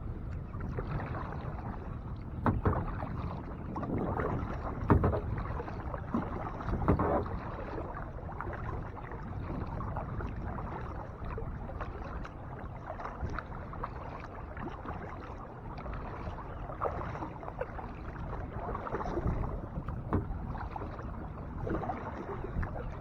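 Kayak paddle dipping and pulling through lake water, with splashing and dripping, and a few louder strokes now and then over a steady watery wash.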